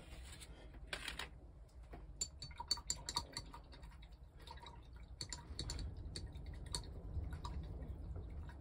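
Light, irregular clicks and taps of small objects being handled on a workbench, a few at a time, some with a faint ring, over a low steady hum.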